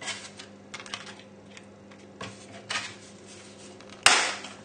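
Dry lasagne sheets being handled and laid in a ceramic baking dish: scattered light clicks and scrapes, with one sharp, loud clack about four seconds in.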